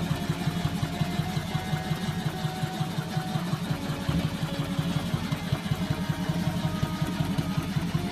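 Custom Yamaha XV750 cafe racer's air-cooled V-twin idling through its custom exhaust, a steady run of low exhaust pulses.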